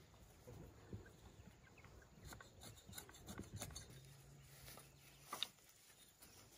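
Near silence, with faint scattered taps and scrapes and a brief low hum a little after the middle.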